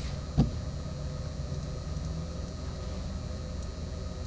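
Steady low room hum with a single short, dull knock about half a second in.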